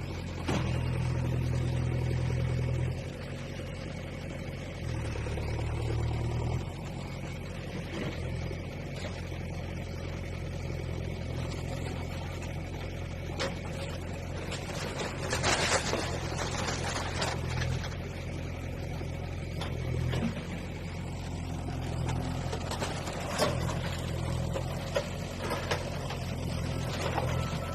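Bulldozer's engine running with a steady low drone, revving up twice in the first several seconds. Scattered crashes and clatter of demolition break in over it, the heaviest about halfway through and again near the end.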